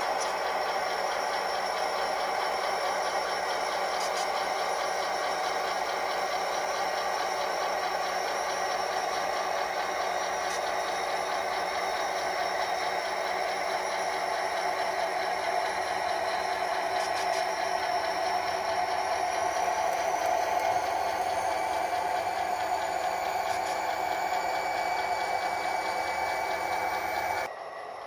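Model train rolling along a layout: a steady engine-like drone with a rattle. It drops away abruptly near the end.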